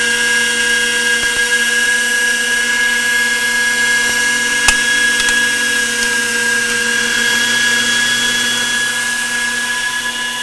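Electric meat grinder running steadily with a high, even whine as raw chicken thigh is pushed through it. A single sharp click a little under halfway through.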